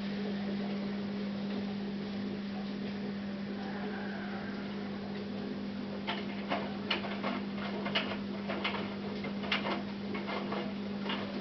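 Hotpoint NSWM 843C inverter-motor washing machine running a rinse, with a steady low hum. From about halfway through, a run of irregular sharp clicks and knocks comes from the tumbling drum.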